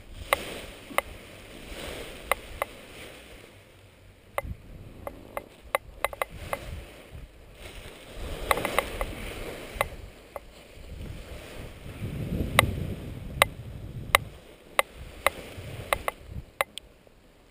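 Nylon paraglider wing rustling and crumpling in swells as it is gathered up by hand, with many scattered sharp clicks and knocks.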